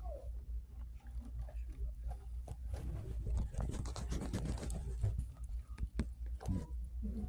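Quiet cinema auditorium between trailers: a steady low rumble, with a burst of soft clicks and crackles from about two and a half to five seconds in.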